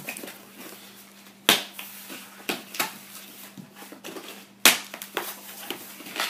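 Cardboard shipping box being opened by hand: flaps pulled apart, with the cardboard scraping and rustling. Two sharp knocks stand out, about one and a half seconds in and again about three seconds later.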